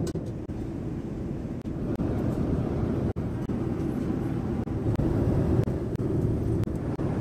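Steady low rumble of a vehicle in motion, broken by a few very brief dropouts.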